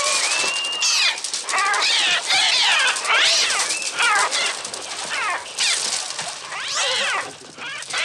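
A dense, unbroken chorus of screeching seagulls in attack, many overlapping cries that each rise and fall in pitch. These are the film's gull sound effects, built electronically on the Mixtur-Trautonium.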